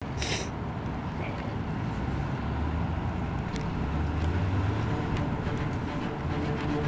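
Steady low rumble like a vehicle or rolling wheels, growing slightly louder, with a short sharp noise at the very start and a faint click about three and a half seconds in.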